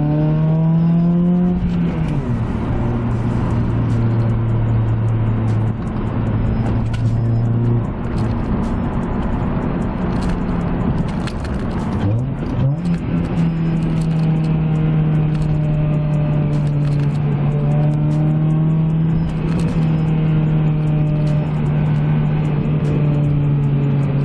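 Acura RSX's four-cylinder engine under way through a manual gearbox: the revs climb, fall at a gear change about two seconds in, dip and climb again around twelve seconds, then hold steady at a cruise.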